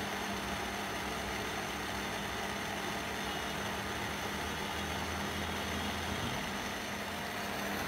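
Philips induction cooktop running under a steel pot of water: a steady fan whir with a low electrical hum.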